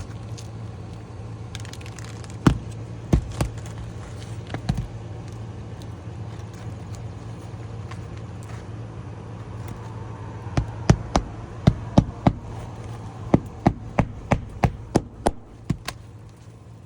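Hammer blows on roofing nails in an asphalt shingle: a few scattered strikes, then a quick run of about fifteen blows near the end. A steady low hum runs underneath.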